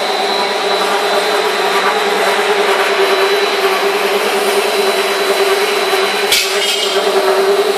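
A corn puff snack extruder line running: a steady, loud machine drone with a strong hum and a thin high whine, from the extruder and its screw feeder. A single sharp click comes a little after six seconds.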